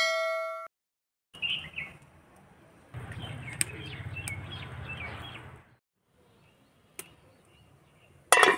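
A short ringing electronic chime opens, then small birds chirp over a steady low outdoor rumble. A sharp knock comes right at the end.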